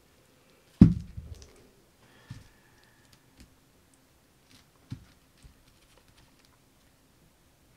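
Handling knocks: one sharp knock about a second in, then a few lighter knocks and small clicks.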